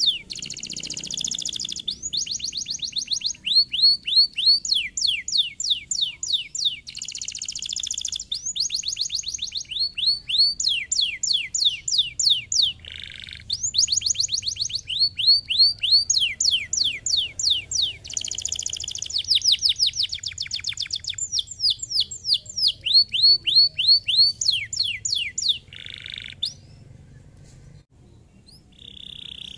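Domestic canary singing: fast trills of repeated high, falling notes, about ten a second, one phrase after another, with a few harsh buzzy notes between them and a short pause near the end.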